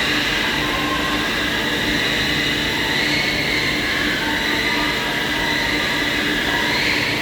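CNC lathe running, a steady machine noise with a high whine and a second, higher tone above it that shift briefly near the end.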